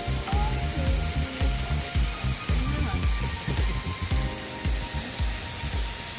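Slices of pork belly (samgyupsal) sizzling and frying on two tabletop grill pans, a steady crackling hiss, under background music with a regular beat.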